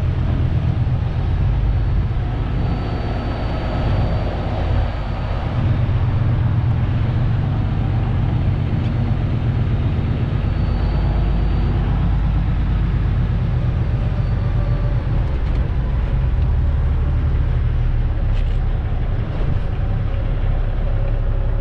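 Semi-truck's diesel engine running steadily with a deep, even rumble while the truck is being manoeuvred to back into a parking space.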